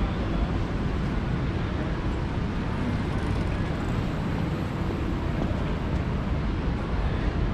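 Steady city street noise with a low rumble of passing traffic.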